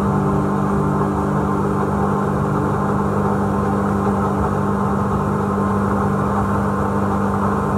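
The 250-horsepower BRP Rotax jet engine of a Hewescraft 180 River Runner jet boat running steadily at speed, a loud, even drone, heard from aboard the boat.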